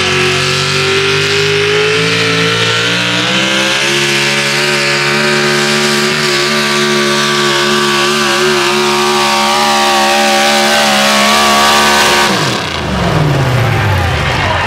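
Supercharged engine of a 6,200 lb 4x4 pulling truck running flat out as it drags the weight-transfer sled, its pitch climbing a little over the first few seconds and then holding high and steady. About twelve seconds in the engine is shut off and its pitch drops away quickly as the truck stops at the end of the pull.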